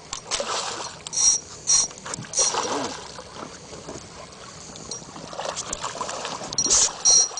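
Two pairs of short high beeps, a camera's focus-confirmation tone, about a second in and again near the end, over water splashing and knocks against a small fishing boat as a hooked fish is brought alongside.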